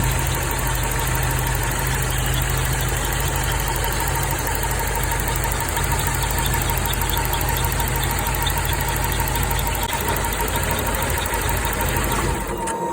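A high-mileage Toyota AE86 engine (over 330,000 km) idling steadily. It carries two abnormal engine-bay noises whose cause has not been found: a thin steady whine and a faint, fast, even ticking. The sound cuts off just before the end.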